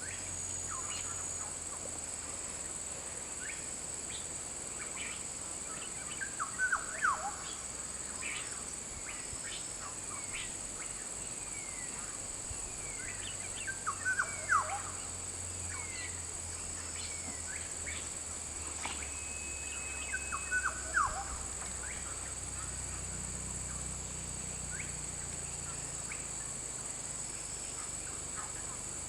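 Birds calling: scattered short chirps and sweeping whistles, with three louder bursts of calls about 7 seconds apart, over a steady high-pitched hiss.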